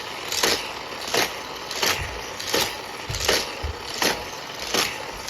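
Hot Wheels die-cast toy car lapping a plastic track, a short whoosh about every 0.7 s as it comes round, over a steady background hum.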